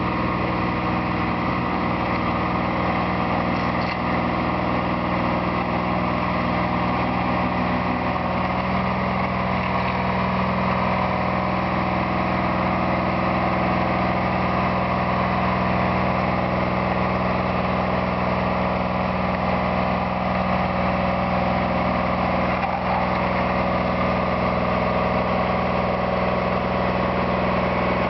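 Road roller engine running steadily as the machine compacts a gravel road, its note shifting slightly about a third of the way through.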